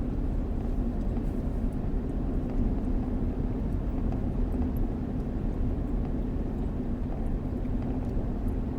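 Steady road and engine noise inside a moving car's cabin: an even low rumble with a steady hum.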